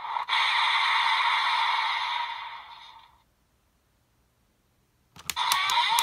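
Electronic transformation sound effects playing through the small speaker of a DX Desire Driver toy belt fitted with the Chain Array and Boost Raise Buckles. The sound fades out about three seconds in, and after a short silence a few sharp plastic clicks come as a buckle is worked, and the belt's sound starts up again.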